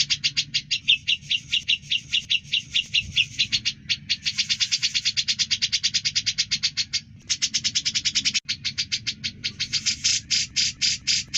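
Cucak jenggot (grey-cheeked bulbul) calling in a long, rapid series of repeated notes, about ten a second, broken by a few short pauses and slowing to a few spaced notes near the end. A faint low hum runs underneath.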